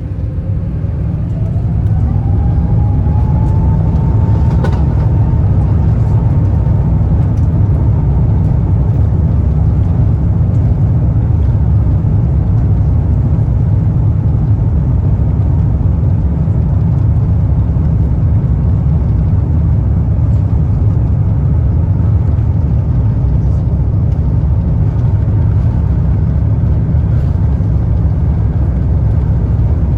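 Airbus A350's Rolls-Royce Trent XWB engines heard from inside the cabin: a whine rises in pitch over the first few seconds as the sound swells, then settles into a steady loud rumble. This is the engines spooling up to takeoff thrust for the takeoff roll.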